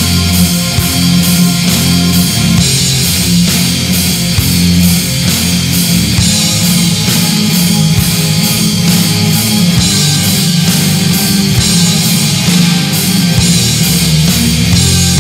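Death metal music: heavy distorted electric guitars and bass holding low notes that change every second or two, over a steady drum beat with repeated cymbal hits.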